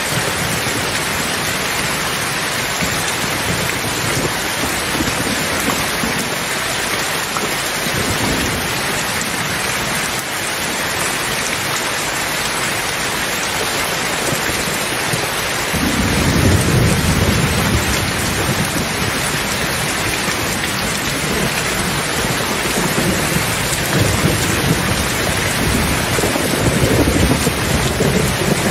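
Steady rain hissing, with rolling thunder. Low rumbles come and go in the first part, then a stronger peal starts about halfway through and keeps rumbling, swelling again near the end.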